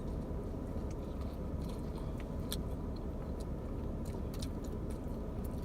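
A person chewing pizza close to the microphone, with scattered small mouth clicks over a steady low background hum.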